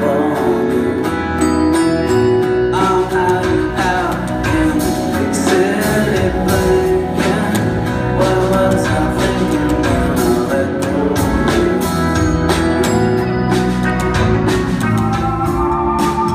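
Rock band playing live with a singing voice and strummed acoustic guitar, heard from the audience. The music changes near the end, where the recording cuts to another song.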